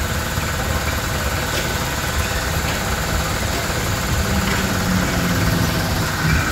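Amusement-ride machinery running with a steady low engine-like hum while the children's flying-elephant ride spins.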